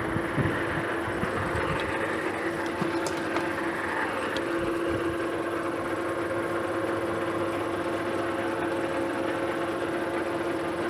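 Metal lathe running at a steady speed, its three-jaw chuck spinning a 2-inch hot-rolled steel bar. The motor and headstock give a steady hum with a constant mid-pitched tone.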